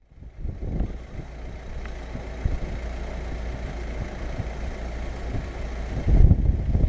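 A car driving slowly along a snowy cobblestone street, heard as a steady low rumble, with a louder low rumble about six seconds in.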